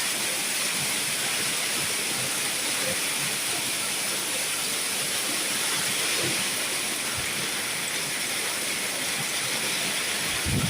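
Hailstorm: hail and heavy rain falling in a steady, dense hiss. A low rumble comes in just before the end.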